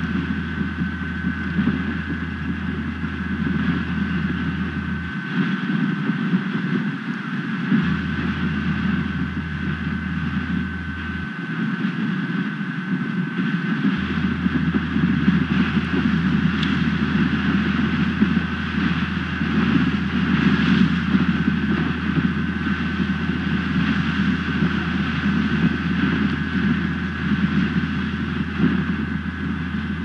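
Strong wind buffeting an outdoor camera microphone: a loud, continuous rushing rumble with a thin steady high tone running through it.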